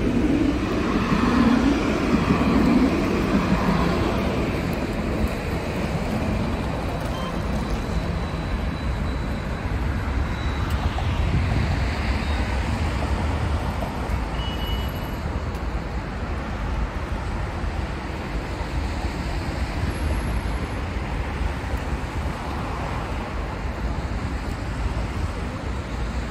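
Steady city traffic noise from cars and heavier vehicles on wet roads, louder for the first few seconds as a vehicle passes close by.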